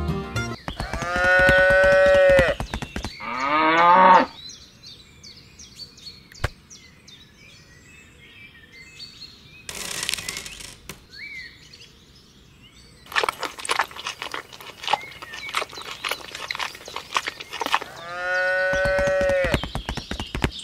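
Cattle mooing three times, laid over the scene as a sound effect: a long moo about a second in, a shorter falling moo right after, and another long moo near the end. In between come many small rapid clicks, dry beans dropping into a small plastic feed bowl.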